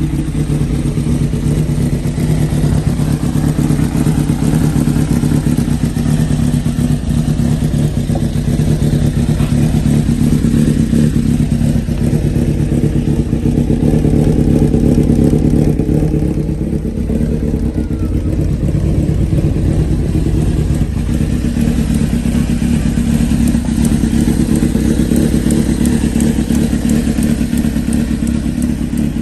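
Honda CBX550F's air-cooled inline-four engine idling steadily through its chrome aftermarket muffler, at an even pitch with no revving.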